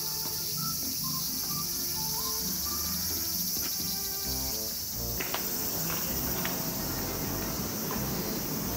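A steady, high-pitched chorus of insects over soft background music; about five seconds in, a rougher background with a few sharp clicks joins it.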